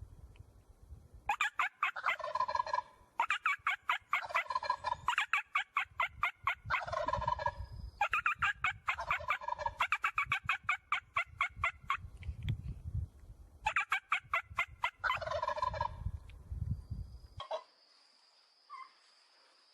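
Turkeys gobbling: about six gobbles in quick succession, each a rapid rattling call lasting about two seconds. The gobbling stops near the end.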